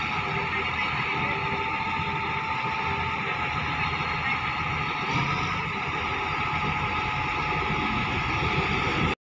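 Heavy diesel machinery running steadily: a crawler bulldozer loaded on the tilted bed of a self-loader truck, its engine running at an even speed.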